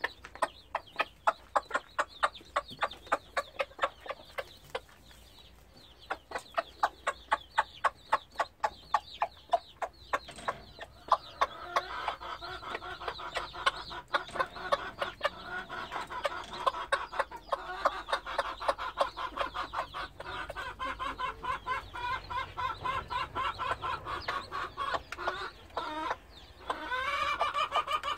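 Hen clucking in quick, evenly repeated calls, several a second, while she pecks food at the bowl with her brood of young pheasant chicks: a hen's food call. From about eleven seconds in, the chicks' high peeping joins in and grows busier, with rising peeps near the end.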